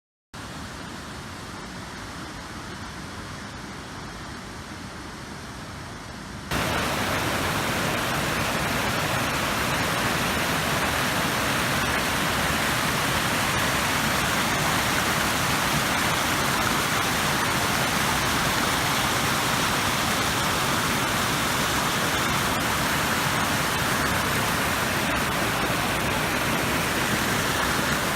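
Waterfall: a steady rush of falling water. About six seconds in it jumps suddenly louder and brighter, and holds there.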